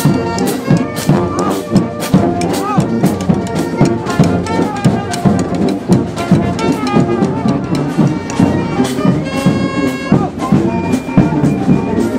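Brass instruments such as trumpet and trombone playing a tune over a steady drum beat.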